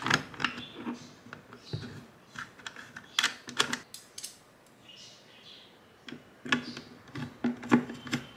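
A small screw being set by hand and then turned with a screwdriver to tighten an IP camera onto its plastic wall-mount stand. It gives irregular short clicks and scrapes of metal on plastic, busiest a little after three seconds and again near the end.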